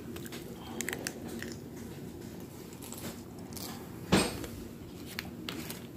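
Close-up eating noises: soft chewing and mouth sounds with scattered small clicks of handling, and one louder knock about four seconds in.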